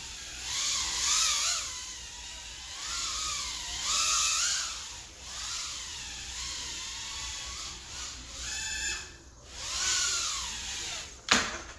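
Mobula6 tiny-whoop FPV drone's brushless motors whining, the pitch rising and falling over and over with throttle changes. A single sharp knock near the end, after which the whine stops.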